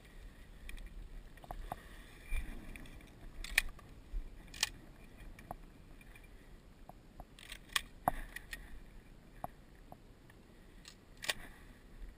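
A few scattered clicks and light knocks, from a camouflage shotgun and gear being handled as the gun is raised.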